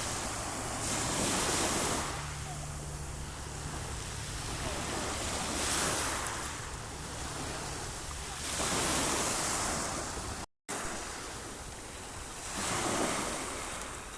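Sea waves washing onto a shore, a steady rush that swells with each breaking wave about every three to four seconds. The sound cuts out completely for a split second about ten seconds in.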